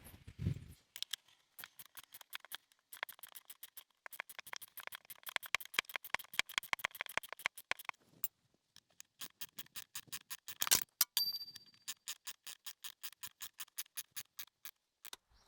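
Socket ratchet clicking in quick, even runs as the strut's top bolt is run down, with a short pause a little past halfway and one louder knock about two-thirds of the way through.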